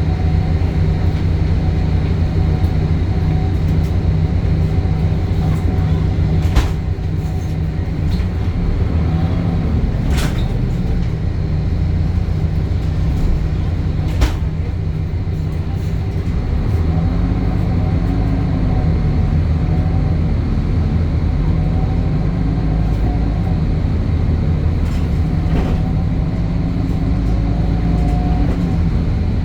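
Temsa Avenue LF 12 city bus running, its DAF Euro 5 diesel engine and ZF gearbox giving a steady low drone. Three sharp knocks come a few seconds apart in the first half, and in the second half slow rising and falling tones run over the drone.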